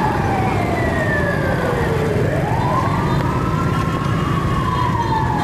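An emergency vehicle's siren wailing: its tone falls slowly, sweeps quickly back up about two seconds in, then falls slowly again. Motorbike and road traffic rumble steadily underneath.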